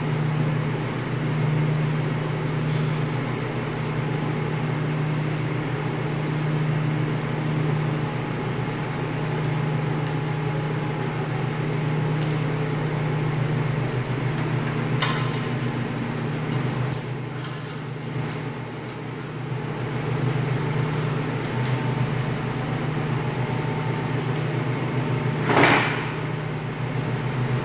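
Steady low hum of the meat room's refrigeration and air handling, with a few light clicks and one louder knock near the end as parts of the band saw are handled.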